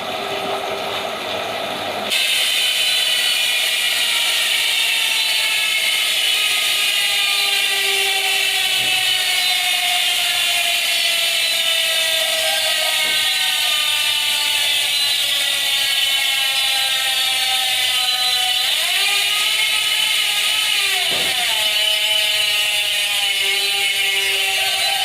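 Sword bicycle hub with six pawls and three teeth freewheeling: its freehub gives a loud, fast ratcheting buzz that slowly drops in pitch as the wheel spins down. It jumps louder about two seconds in, and the pitch rises and falls briefly near the end as the wheel is sped up again. The hub has about 1,600 km of riding on it.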